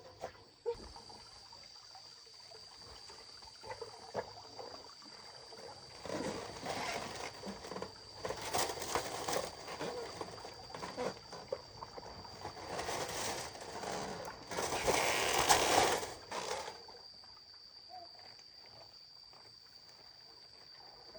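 Water splashing and sloshing in spells from about six to sixteen seconds in, loudest near the end of that stretch, over a steady high insect buzz.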